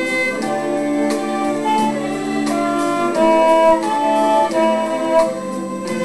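Violin playing a melody of held notes that change about every half second, over a lower accompaniment with a steady beat about twice a second.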